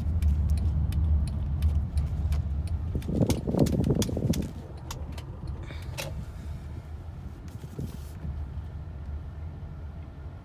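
Honda Odyssey minivan driving, heard inside the cabin: a steady low engine and road rumble with scattered light rattles and clicks. The rumble swells louder about three seconds in, then settles quieter after about four and a half seconds.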